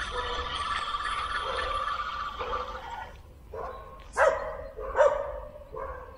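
Spinning reel being wound in for the first couple of seconds, then dogs barking, several short barks in the second half.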